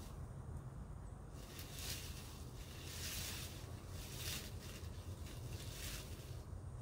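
A run of rustling, scraping noises over a steady low rumble.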